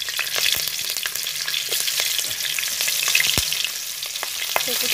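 Green chillies sizzling in hot oil in a karahi, a steady hiss with frequent small crackles and one sharper pop about three seconds in.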